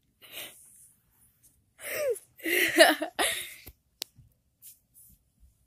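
A girl's wordless vocal sounds: a short breathy puff, then two loud outbursts with sliding pitch, followed by a single sharp click about four seconds in.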